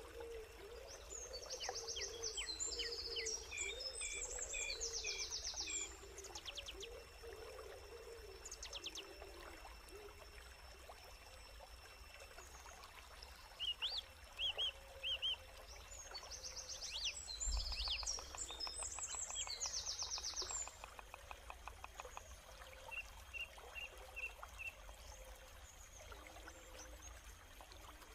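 Wild birds singing, in two long bursts of fast, high, repeating song with scattered short chirps between them, over a faint sound of running water.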